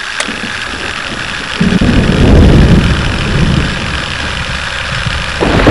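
An engine running. A low rumble comes in about one and a half seconds in, eases off, then surges suddenly near the end.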